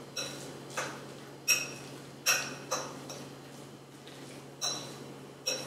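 A metal utensil clinking against a ceramic bowl while stirring chunky avocado with onion, garlic and cilantro: about seven irregular, sharp clinks with a short bright ring.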